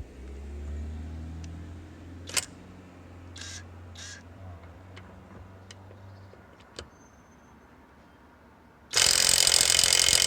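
Cordless impact wrench (seesii WH350, 350 N·m) hammering loudly in reverse on a car wheel nut, starting about nine seconds in; the nut only just comes undone. Before that come a few short clicks and a low rumble.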